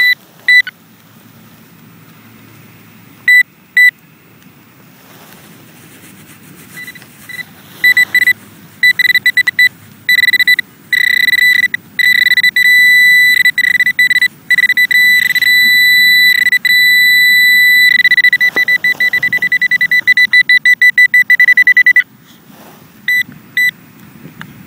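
Garrett handheld pinpointer probe beeping at a high pitch: a few single beeps, then faster and faster beeping that merges into a near-steady tone in the middle, then rapid pulsing that stops near the end. The beeping quickens as the probe tip closes in on buried metal.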